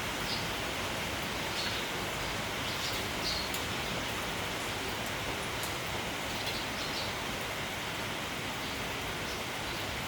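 Steady rain falling, with a few short, high chirps from sparrows scattered through it.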